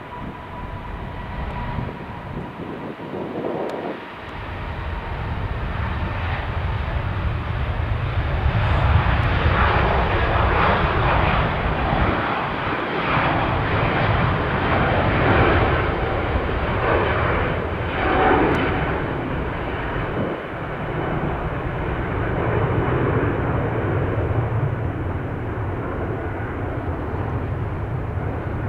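Jet engine noise of an Airbus A380 departing: a deep rumble that swells about four seconds in and stays loud, with a crackling edge strongest in the middle.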